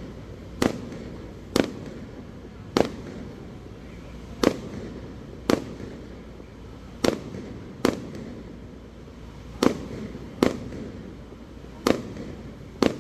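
Aerial fireworks display: shells bursting in the sky in a string of sharp bangs, about eleven of them, unevenly spaced at roughly one a second, each trailing off in a short echo.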